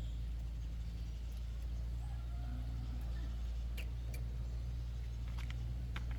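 A motor running steadily with an even low hum, with a few faint clicks in the second half.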